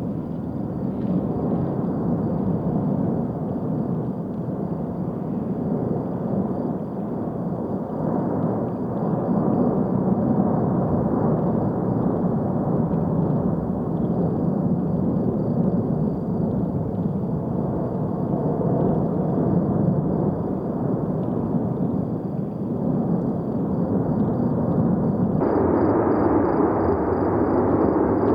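Cumbre Vieja volcano erupting, a continuous deep roar without separate blasts. The roar brightens suddenly about 25 seconds in.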